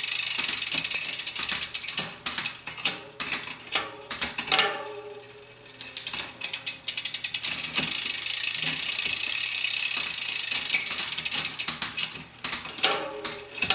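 Bicycle drivetrain spinning in a work stand: a Shimano XT M8000 11-speed chain running over the cassette and derailleur pulleys, with the rear hub's ratchet ticking rapidly. The ticking dips briefly about five seconds in and thins to slower, separate clicks near the end.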